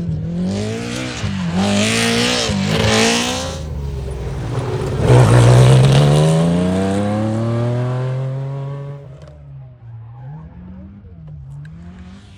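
Rally car engine revving hard with quick dips and climbs in pitch through the first few seconds, then pulling with a steadily rising pitch from about five seconds in. It drops away about nine seconds in, leaving a quieter engine with a few short pitch dips.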